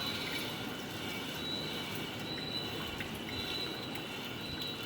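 Smart toilet's bidet spray wand running in rear-wash mode: a steady hiss of water spraying.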